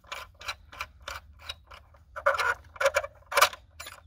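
Steady clicking, about three clicks a second, as a loosened wheel lock nut is spun off its stud by hand, louder for a stretch past the middle.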